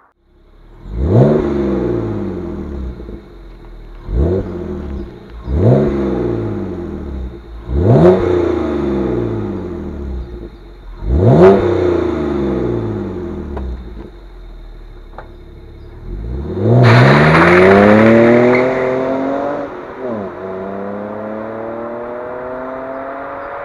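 BMW E92 325i's N53 three-litre straight-six heard through its exhaust, revved in five quick blips that each rise sharply and fall back, then a longer rev held for about three seconds, after which the engine note settles and slowly climbs.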